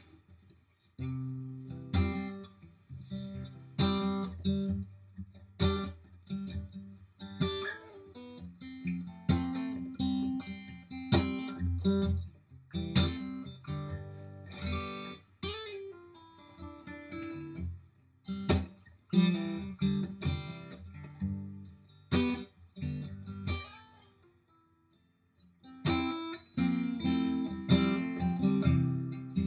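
Acoustic guitar played solo, chords strummed and picked at a slow, easy pace, starting about a second in. Near the end the playing stops for a couple of seconds and then comes back in.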